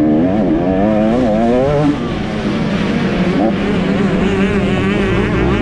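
KTM 250 SX two-stroke motocross engine ridden hard, its pitch rising and falling quickly as the throttle is worked over rough ground.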